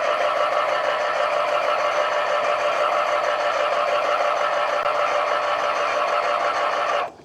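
12-volt electric hydraulic pump motor of a trailer jack running steadily with a high, even whine, lifting the trailer; it cuts in and cuts off abruptly about seven seconds later.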